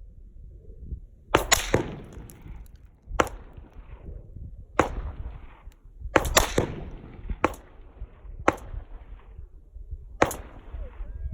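Gunshots heard from downrange, about 100 yards from the shooters: about ten sharp cracks at irregular intervals, some in quick pairs, each followed by a rolling echo.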